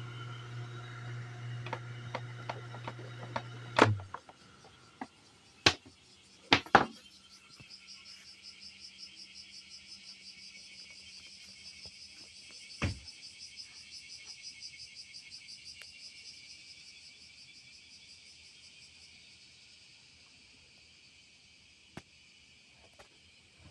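Kawamoto N3-136SHN well pump's electric motor running with a steady hum, a motor the seller says makes an abnormal noise; it cuts off with a loud clunk about four seconds in. A few sharp knocks follow, then insects chirr in a fast pulsing rhythm that slowly fades.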